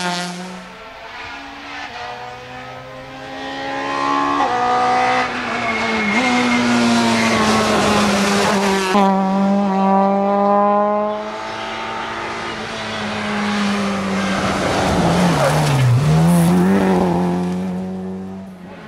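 Rally car engine revving hard, its pitch climbing and then stepping back at each gear change. It is loudest near the middle, with a sharp drop and rise in pitch around three-quarters of the way through.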